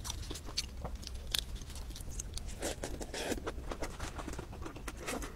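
Close-miked chewing of lettuce: a quick run of small wet clicks and crunches of mouth sounds, with a few louder crunches in the middle.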